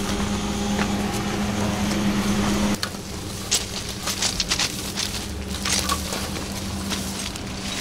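A steady low electric hum from an electric commuter train standing close by cuts off abruptly about three seconds in. After that come irregular crackling rustles and snapping twigs as people push on foot through tall bushes and undergrowth.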